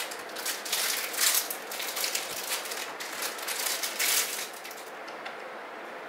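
Plastic packaging crinkling and crackling as it is handled, stopping about three quarters of the way through.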